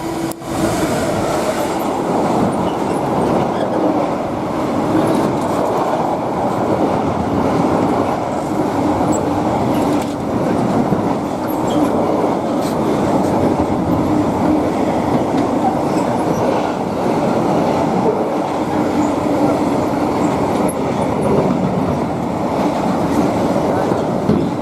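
Freight train hauled by Class 66 diesel locomotive 66714 passing through at speed, a long rake of wagons rolling by with a steady rumble and clickety-clack of wheels over rail joints.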